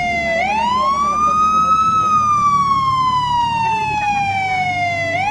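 Police siren sounding a slow wail. The pitch rises over about a second and a half, then falls slowly for about three seconds, and starts rising again near the end.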